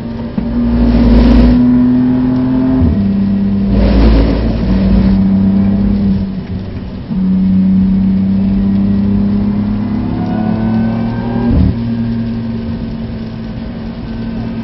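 BMW F80 M3's twin-turbo inline-six heard from inside the cabin at speed, its note holding steady and then jumping in pitch a few times, with a short crack at a gear change about twelve seconds in. Two bursts of rushing noise come through early on the wet track.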